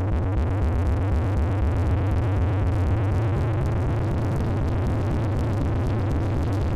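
Electronic synthesizer music with a heavy, steady low bass drone under a dense, busy texture.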